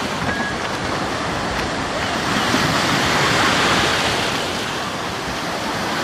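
Rough sea surf breaking and washing through the shallows, a steady rush that swells to its loudest about halfway through and then eases. The waves are strong with the sea running high.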